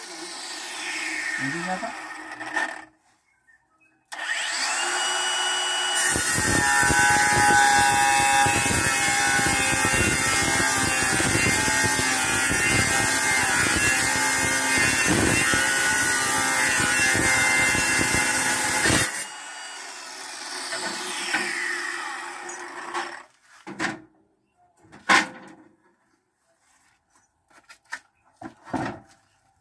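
Handheld angle grinder cutting a tile. It runs briefly and stops, starts again about four seconds in and spins freely, then grinds loudly through the tile from about six to nineteen seconds in before spinning down. A few short knocks follow near the end.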